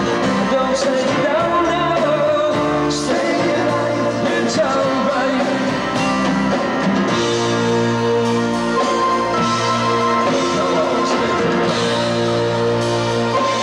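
Live band with acoustic guitars and drums playing a rock song, with a male lead voice singing over it.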